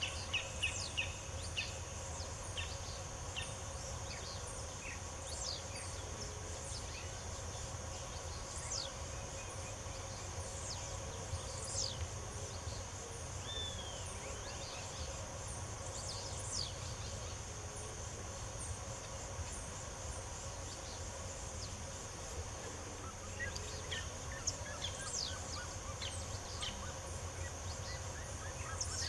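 Birds chirping and singing in many short high calls, scattered throughout, over a steady high-pitched insect buzz and a low steady hum.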